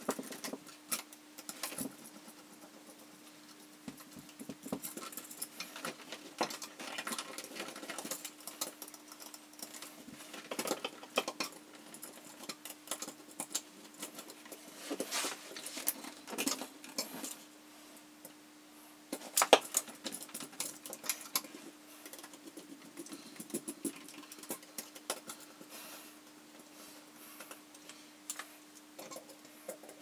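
Small metallic clicks, scrapes and rattles of a screwdriver and fingers working the terminal screws and wires of an electrical outlet being wired in, with one sharp, loud click about two-thirds through. A faint steady hum runs underneath.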